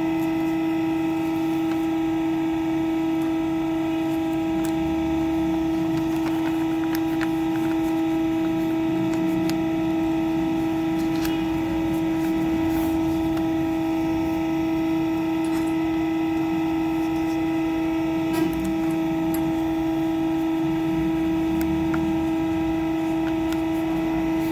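Hydraulic press's motor and pump running idle: a steady, unchanging hum on one strong tone with fainter tones above it. A few faint clicks and paper rustles come from the sheet being marked and folded on the press bed.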